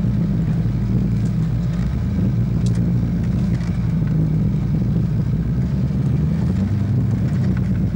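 Off-road 4x4's engine running steadily as it drives along a wooded dirt track, heard from inside the cab, its pitch shifting slightly with the throttle.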